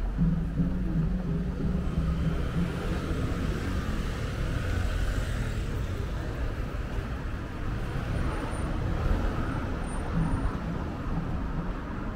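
Street traffic: cars passing on the road alongside, a steady low rumble of engines and tyres, with a stronger engine hum for the first couple of seconds.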